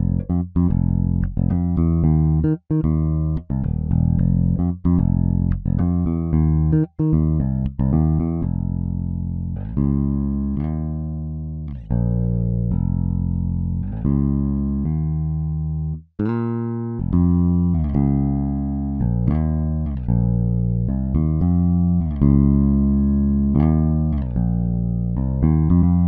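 Toontrack EZbass virtual electric bass playing a contemporary R&B bass groove, a run of plucked notes in a syncopated line. It breaks off briefly about sixteen seconds in as the next groove starts.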